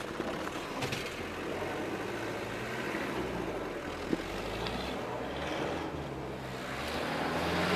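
Off-road 4x4 engine running steadily at low revs over rough ground, growing louder near the end. A short knock is heard about four seconds in.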